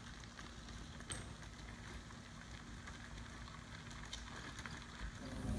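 Faint outdoor background: a soft steady hiss with a few small ticks.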